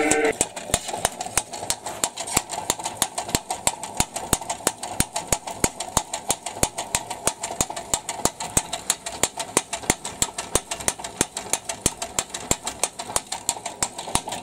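Homemade reciprocating multi-tool built from an old tile cutter, its slide driven back and forth by an electric motor, slapping steadily about five times a second.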